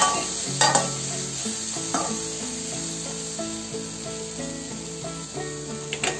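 A metal spoon stirring and scraping boiled black chickpeas around a pan of hot oil and spices, with a steady sizzle; a few sharp scrapes come near the start and again near the end.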